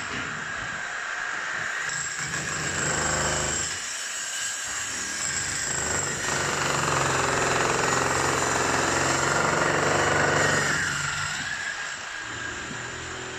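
Construction machinery running steadily, a low drone under a harsh noise, easing off near the end.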